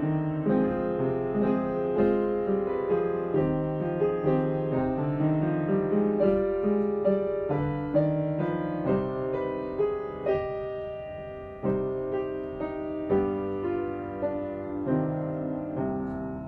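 Keyboard music: piano-like notes and chords, each struck and then dying away, in an unhurried sequence.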